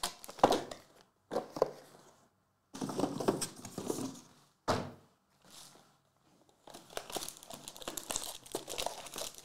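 Foil wrappers of trading-card packs crinkling and rustling as they are handled and pulled from the box, in several spells with short pauses, with a couple of sharp knocks.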